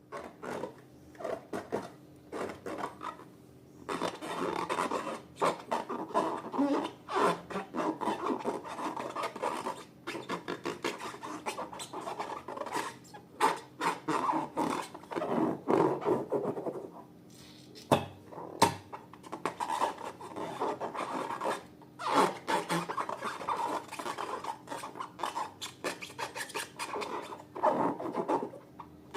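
Slime being mixed and worked, giving a run of crackly rubbing and scraping sounds in uneven bursts with a few short pauses.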